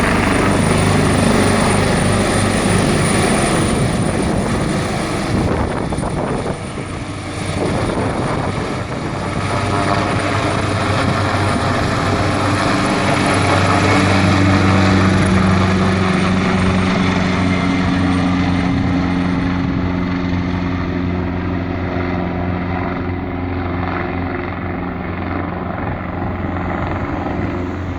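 Ambulance rescue helicopter's rotor and turbines running loud as it takes off, with a steady low drone throughout. A high turbine whine fades out in the second half and the sound eases off slightly toward the end.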